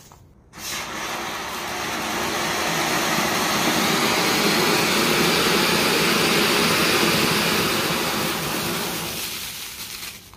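Gudiya-brand Ashrafi matka anar (flower-pot firework) burning, its fountain of sparks giving a steady hissing rush. The hiss starts about half a second in, swells to its loudest through the middle and fades out near the end as the fountain burns down.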